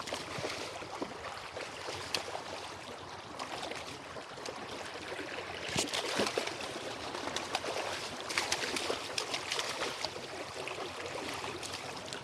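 A hooked salmon splashing and thrashing at the surface of shallow creek water as it is brought in and grabbed by hand, over the steady rush of the flowing creek. The loudest splashes come about six seconds in and again around eight to nine seconds.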